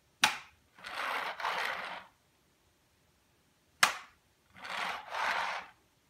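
A cat's paw smacks the plastic floor nozzle of a vacuum cleaner twice, a sharp knock each time about three and a half seconds apart. Each knock is followed by two short breathy hisses.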